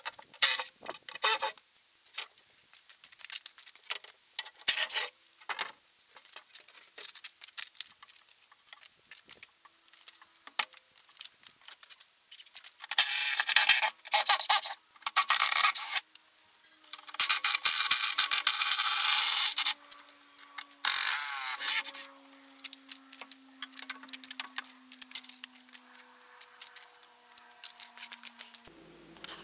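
Wooden shipping crate being taken apart by hand: scattered knocks and clicks, with several long bursts of wood scraping about halfway through as panels and fasteners are worked loose.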